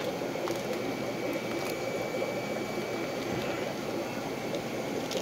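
Steady bubbling and churning of aquarium water from the tanks' aeration and filtration, with a few faint ticks.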